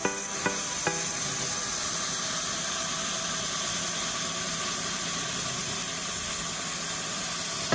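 Steady hiss and hum of sawmill machinery running with no cut under way, with two sharp ticks in the first second.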